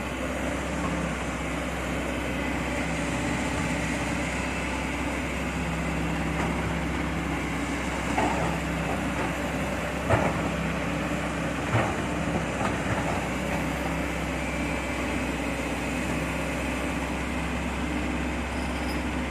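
Heavy diesel engine running steadily, with a few short knocks about eight, ten and twelve seconds in.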